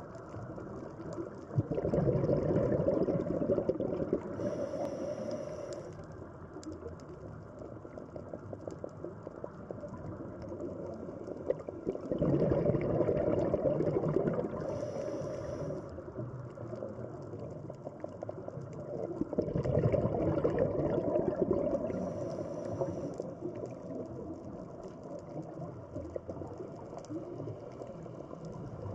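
Scuba diver breathing through a regulator underwater: three long rushes of exhaled bubbles, each a few seconds long, ending in a short high hiss, over a steady underwater wash.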